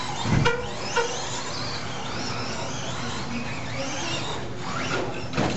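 1/10-scale RC stadium trucks running on a dirt track, their motors whining up and down in pitch as they accelerate and brake. A low thump and two short beeps come in the first second.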